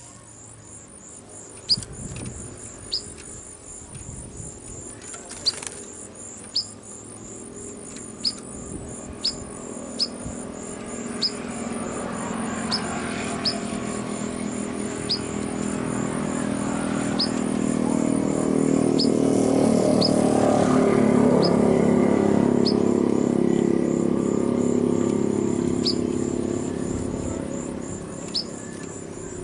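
A small caged bird gives single sharp chirps, one every second or two, over a steady high pulsing trill. A low droning hum swells and fades through the middle.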